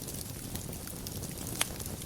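Wood fire burning in a fireplace: a steady low rumble of the flames with scattered crackles, and one louder pop near the end.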